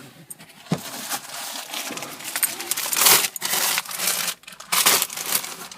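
Plastic parcel packaging being handled, with irregular crinkling and rustling that swells twice near the middle and end.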